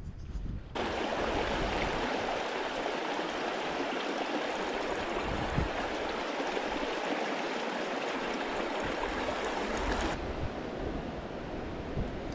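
Shallow alpine river rushing over stones: a steady hiss of running water. About ten seconds in it drops abruptly to a softer water sound.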